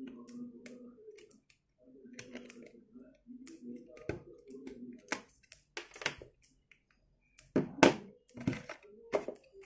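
A clear plastic phone case being pressed and snapped onto a smartphone: a run of light plastic clicks and handling knocks, with a louder clatter about eight seconds in.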